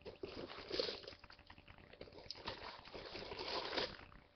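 Packaging material rustling and crinkling in irregular bursts, with small knocks, as a parcel's contents are searched by hand.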